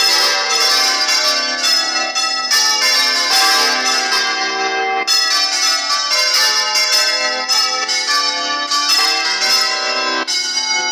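Several church bells swung full circle in a general peal (volteo), striking in rapid, overlapping succession with long ringing tones, heard close up inside the belfry.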